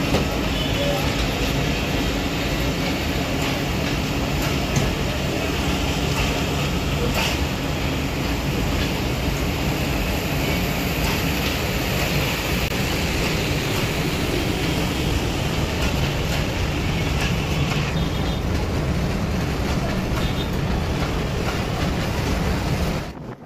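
Passenger train's CRRC coaches rolling slowly on the rails, heard from an open doorway: a steady rumble and rattle of wheels on track with occasional clicks over rail joints. A faint high squeal from the wheels runs through the middle stretch. The sound cuts off suddenly near the end.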